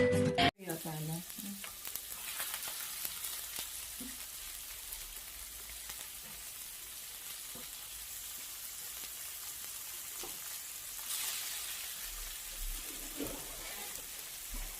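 Meat sizzling and crackling on a tabletop gourmet grill plate, a steady frying hiss. A burst of music cuts off about half a second in.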